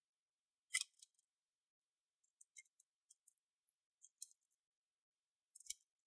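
Sparse faint clicks and ticks of tiny laptop screws and a precision screwdriver being handled, with a sharper click just under a second in and another near the end.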